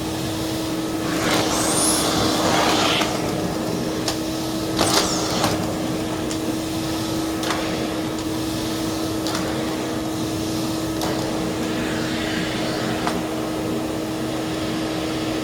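Vintage Hoover Portable 2110 vacuum cleaner running, with a steady motor hum under a constant rush of air. The air rush swells a few times, loudest in the first few seconds.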